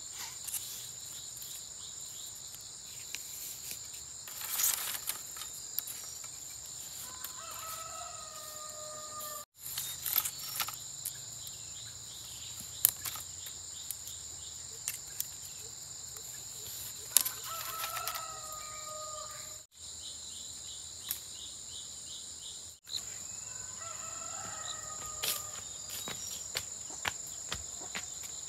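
A rooster crowing three times, spaced several seconds apart, over a steady high-pitched insect chorus, with scattered light clicks and taps.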